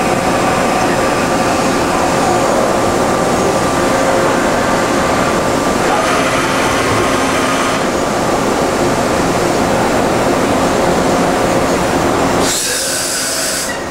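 Steady mechanical drone of industrial machinery under power, with several steady hum tones over a rumble. Near the end, a hiss cuts in for about a second while the low rumble drops out.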